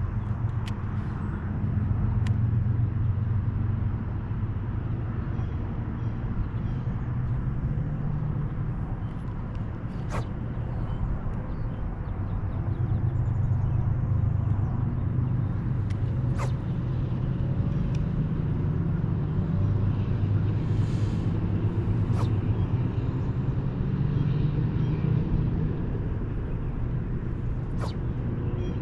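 A low, steady motor-like hum that swells and eases slowly, with a handful of sharp clicks scattered through it.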